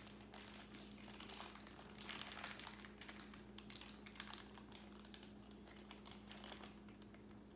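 Faint crinkling and crackling of plastic toy packaging being handled, in short irregular bursts, over a faint steady hum.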